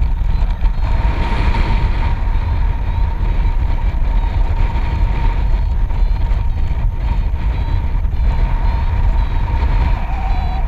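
Airflow of paragliding flight rushing over the camera microphone, a loud steady rumble, with a variometer's electronic tone beeping through it.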